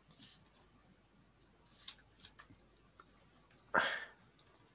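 Computer keyboard keys clicking in scattered, light typing, with a short louder breathy rush of noise about four seconds in.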